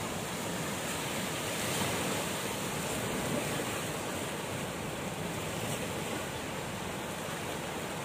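Small ocean waves breaking and washing in over rocks and coarse coral pebbles on the shore: a steady rush of surf that swells a little two to three seconds in.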